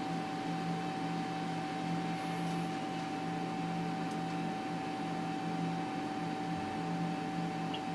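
Steady electrical hum with hiss from the ultrasound scanner, a few fixed tones held without change.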